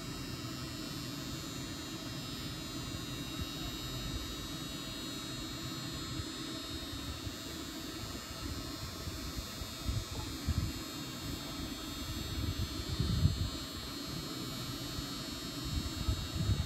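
Steady hum and hiss of ventilation fans in a large indoor arena, with a few dull low thumps from about ten seconds in.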